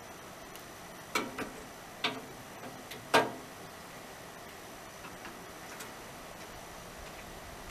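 Three sharp metallic knocks from work on the sawmill's steel frame, each ringing briefly, the third the loudest, with a few faint ticks between.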